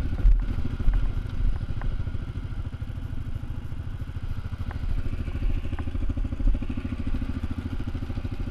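ATV engine running steadily at low revs, with a few low thumps about half a second and a second and a half in.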